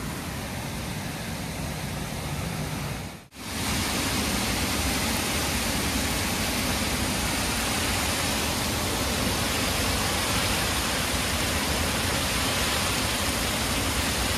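Small waterfall rushing steadily. About three seconds in the sound cuts out for a moment and comes back louder and close.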